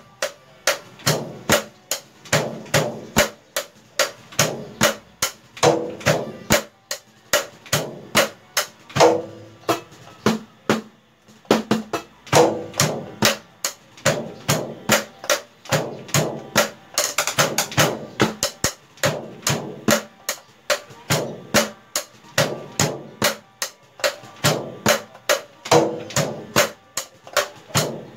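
Acoustic noise of a DIY electronic drum kit being played: the unamplified taps and thuds of sticks on the pads and the kick pedal striking its trigger, several hits a second in a steady groove, with a short break about ten seconds in.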